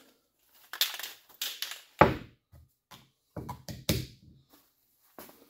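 A few irregular knocks and clicks of things being handled, the loudest a dull thump about two seconds in.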